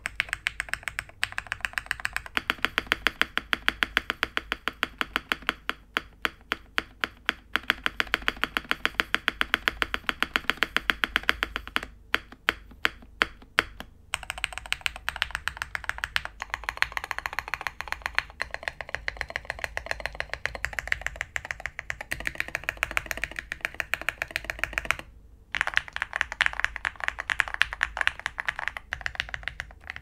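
Continuous typing on an Owlabs Jelly Epoch mechanical keyboard with an aluminium plate and full foam, fitted with lubed, broken-in Hyperglide MX Black linear switches and MT3 PBT keycaps: a rapid stream of keystrokes, thinning out for a couple of seconds midway and stopping briefly near the end.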